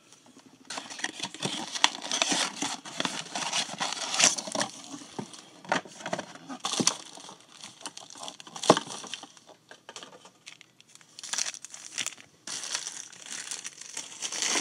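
Plastic wrapping and trading-card packaging crinkling, crackling and tearing as they are handled and opened. The sound comes in bursts, with brief pauses about two-thirds of the way through.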